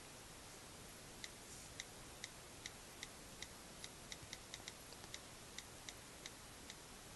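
Key-click sounds of iPad on-screen keyboards as someone types on two iPads: about twenty short, sharp clicks at an uneven pace of roughly three a second, starting about a second in.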